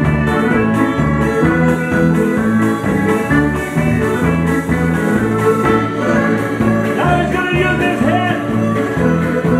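Live old-time Ukrainian dance music: fiddles playing a lively tune over guitar and upright bass, with a steady bouncing bass line. A fiddle slides up in pitch a few times near the end.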